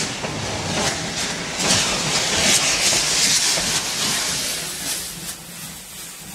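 Steam locomotive hissing steam. The hiss swells about two seconds in and dies away near the end.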